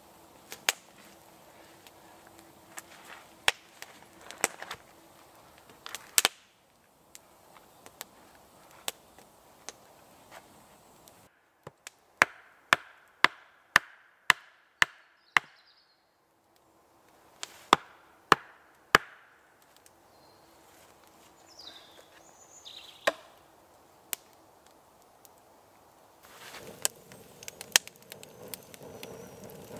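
An axe striking wood: scattered knocks at first, then a steady run of about a dozen sharp blows at roughly two a second, as a wooden stake is driven in with the axe to hold stacked logs. Near the end a small campfire crackles.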